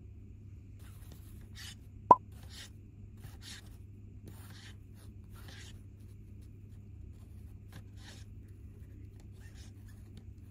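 Black plastic spoon stirring thin egg-drop broth in a paper bowl: a series of short liquid swishes and plops, with one sharp click about two seconds in. A steady low hum runs underneath.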